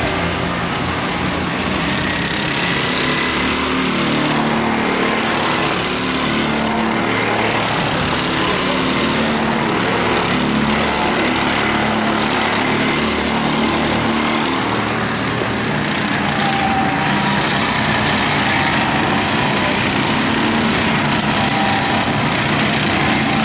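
Several rental go-kart engines running as a pack of karts laps the track, their engine notes shifting up and down as the karts speed up and slow for the corners.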